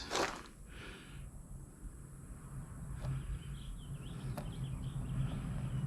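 Faint bird chirps with two sharp clicks, over a low steady hum that grows louder toward the end.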